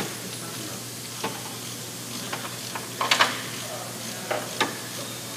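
Steady background hiss with scattered sharp clicks and knocks, loudest as a short cluster about three seconds in, from hands-on work at a C-130 propeller hub.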